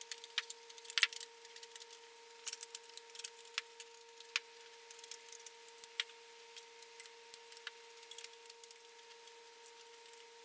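Light metallic clicks and clinks of aluminium EZ Tube display-frame tubes being handled and pushed together, many small irregular taps, over a faint steady hum.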